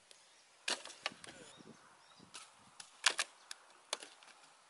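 Dry firewood being chopped and broken by hand: about eight sharp, irregular woody cracks, the loudest two close together about three seconds in.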